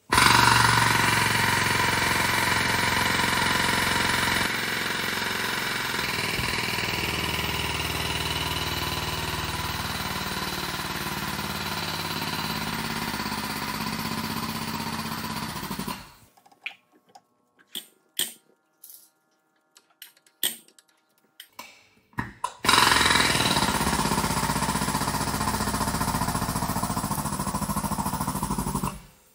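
Pneumatic pull cylinder running on compressed air, pressing a compact wheel bearing into a van's steering knuckle. It runs loud and steady, cuts off after about sixteen seconds, a few short clicks and knocks follow, then it runs again for about six seconds and stops.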